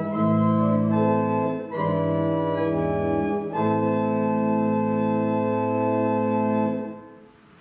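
Organ playing slow, held chords of a hymn tune in three phrases. The last chord is held for about three seconds and released near the end.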